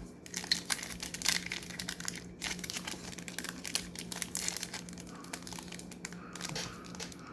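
Plastic wrapper of a basketball trading card pack crinkling and crackling irregularly as it is handled and torn open by hand, a pack that is hard to open.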